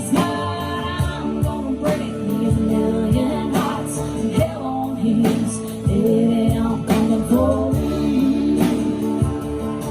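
A woman singing a country song over instrumental backing with a steady beat.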